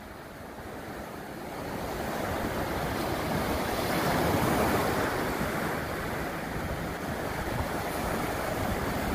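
Small Gulf surf breaking and washing up the sand, a steady hiss that swells to its loudest about four seconds in and then eases a little, with some wind on the microphone.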